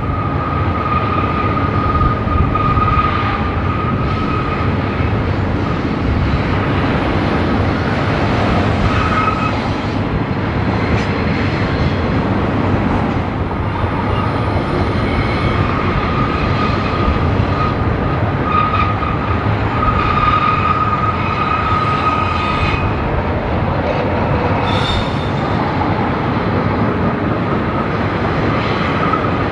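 A BNSF freight train rolling past at close range, its wheels running with a steady rumble. Wheel flanges squeal on the curving canyon track: a high squeal comes and goes repeatedly, with a few brief sharper squeals above it.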